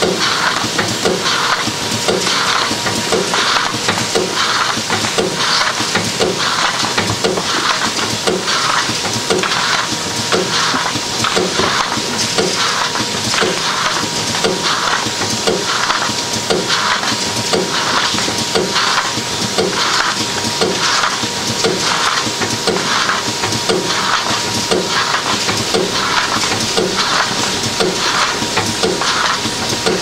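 DEL ILPS intermittent lid plugging machine running through its cycles, about three strokes every two seconds in an even rhythm, over a continuous machine noise with a steady whine.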